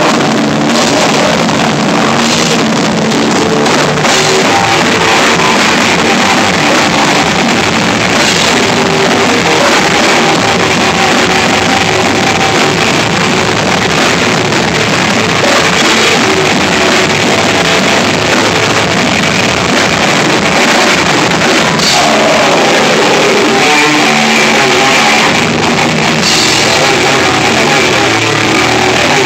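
A rock band playing live: electric guitars, bass guitar and a full drum kit, loud and dense throughout.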